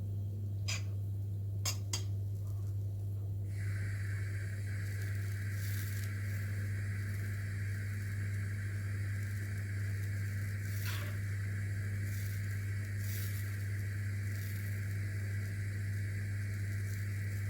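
Butter melting in a pan starts to sizzle about three and a half seconds in, a steady hiss with an occasional brief crackle or scrape, over a steady low hum. A few light clicks come in the first two seconds.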